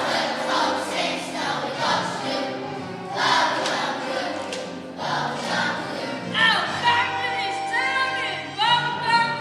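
Children's choir singing with musical accompaniment, with sliding held notes in the last few seconds.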